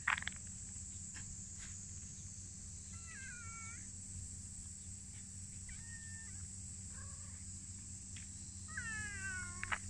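Stray cats meowing: a falling meow about three seconds in, two short calls in the middle, and a longer falling meow near the end. A sharp click right at the start.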